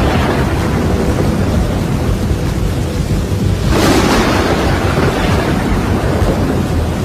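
Storm noise: a steady rush of rain and wind over a low rumble, with a thunderclap about four seconds in.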